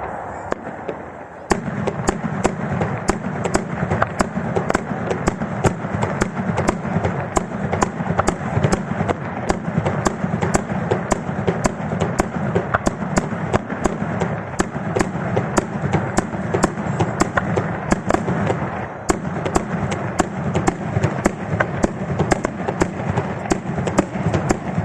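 Daytime aerial fireworks firing a dense, continuous barrage of sharp bangs and crackling, several reports a second, starting about a second and a half in after a brief lull.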